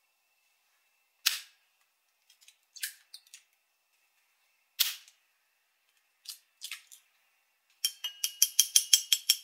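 Two eggs cracked open one after the other into a glass bowl, each with one sharp crack followed by smaller shell sounds. Near the end the eggs are beaten, the utensil clicking against the glass about five times a second.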